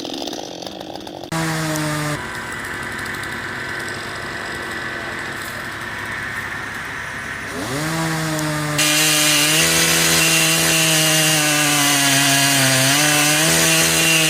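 Chainsaw engine running, then revving up about eight seconds in and cutting into wood at full throttle, its pitch wavering slightly under load.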